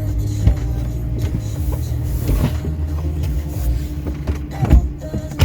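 Truck running, a steady low rumble with a constant hum, heard from the cab, with a few knocks and a sharp thud near the end.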